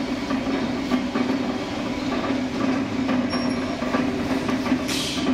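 Heavy-duty colour mixer running: its 5 HP electric motor drives the gearbox through a belt, giving a steady mechanical hum with a continuous irregular clattering.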